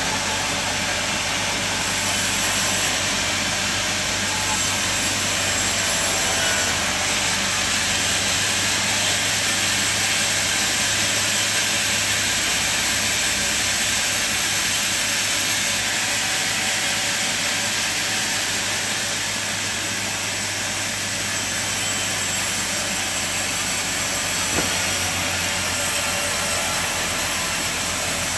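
Sawmill cutting a log: a steady, high hiss from the blade in the wood over the even hum of the machine's motor, running on without a break.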